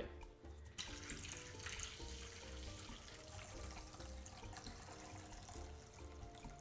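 Pho broth poured from a plastic container into a large bowl: a steady liquid pour that starts about a second in, over quiet background music with a steady beat.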